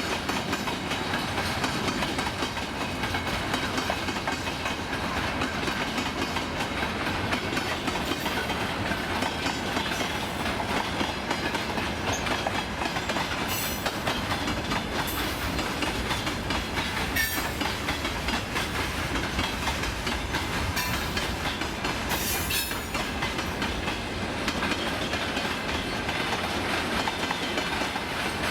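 Freight train wagons rolling past at steady speed, the wheels clattering over the rail joints in a continuous rumble. Several short high-pitched squeals from the wheels come in the middle stretch.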